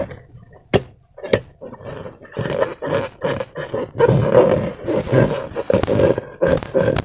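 Hands squishing and working slime inside and against rubber balloons: wet squelching and creaky rubber rubbing, with a couple of sharp clicks about a second in, then a denser, louder squelching from about two and a half seconds on.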